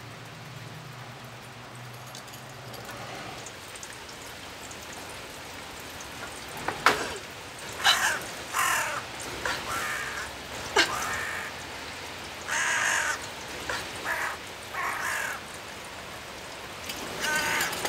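A crow cawing over and over, starting about seven seconds in, with a few sharp cracks among the calls.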